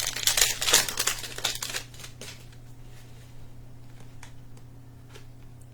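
Trading cards and their pack wrapper being handled, crinkling and rustling for about two seconds, then a few faint clicks as the cards are sorted.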